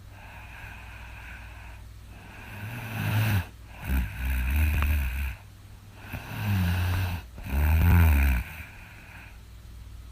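A person snoring loudly: two snoring breaths about four seconds apart, each in two loud parts, over a steady low hum.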